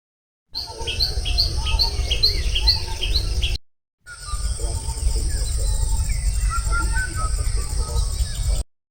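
Several birds calling at dawn: first one call repeated about twice a second, then after a brief silent break a mix of varied chirps and whistles, over a steady high whine and a low rumble.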